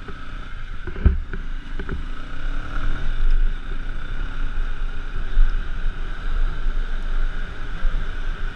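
G-max 150 motorcycle riding along a wet street, its engine drone under heavy wind rumble on the microphone, with a thump about a second in.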